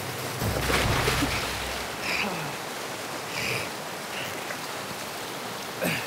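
Cold glacial waterfall rushing and churning into a rock pool, with heavier splashing about half a second to a second in as a climber's body meets the torrent, and a brief sharp sound just before the end.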